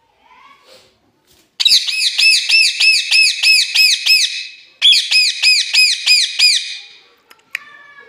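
Rose-ringed parakeet screeching: two loud bouts of fast, repeated harsh calls, about three or four a second, with a short break between them, which the owner takes for the bird being angry. A fainter, lower falling call follows near the end.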